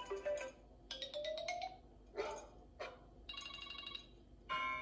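Smartphone alarm tones previewed through the phone's speaker: several short electronic chimes one after another, one rising in pitch about a second in.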